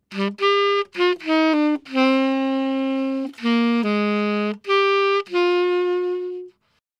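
Yanagisawa T-901 tenor saxophone with a Jody Jazz Jet 7 mouthpiece playing a short jazz phrase of about ten notes, the last one held longest before it stops near the end. It is recorded dry, with no compression or EQ, through a Beyerdynamic M160 ribbon microphone.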